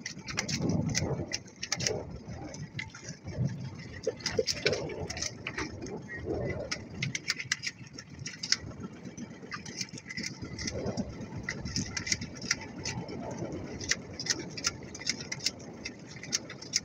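Water lapping and splashing against a small wooden outrigger boat at sea, with frequent irregular sharp clicks and knocks.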